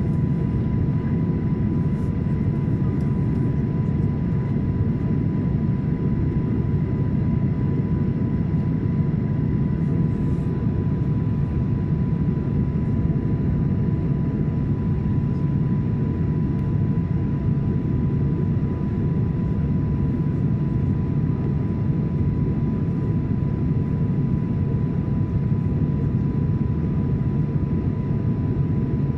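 Steady cabin noise inside a Boeing 737-800 with its CFM56 engines at idle while holding before takeoff: an even low rumble with a thin steady high tone over it.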